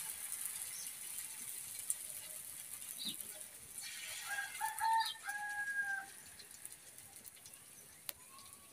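A rooster crows once, about four seconds in: a few short broken notes and then one longer held note. Under it runs a faint steady hiss, with a couple of light clicks.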